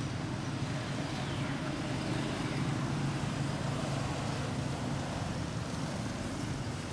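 Steady motor traffic noise with a low engine drone, and a few faint high falling squeaks about one and two seconds in.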